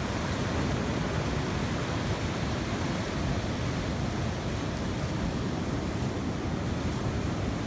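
Steady rushing noise of sea surf mixed with wind buffeting the microphone, heaviest in the low end, with no distinct separate sounds.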